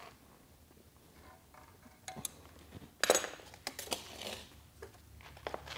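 Pliers clinking against steel nuts and a steel bracket: a few scattered metallic clicks, with one louder clank about three seconds in.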